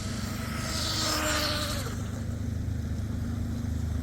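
Radio-controlled tunnel-hull boat's brushless electric outboard motor whining as it runs on the water, with a hiss over the first half; the whine drops in pitch a little under two seconds in. A steady low rumble lies underneath.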